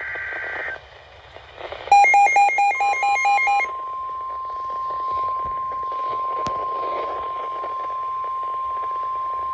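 NOAA Weather Radio alert heard through a receiver over radio static: a short burst of warbling SAME data tones, then the receiver's alarm beeping quickly about nine times, then the steady single-pitch Warning Alarm Tone that comes in about three seconds in and holds. It announces a new warning being broadcast.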